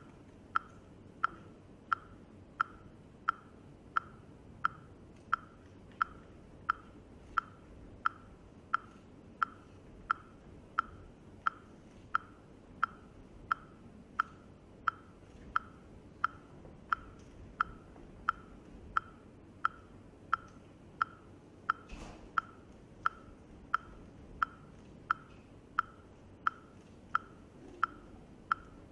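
A steady ticking, like a clock or metronome, at about three ticks every two seconds, over faint low room noise. A single soft thump about two-thirds of the way through.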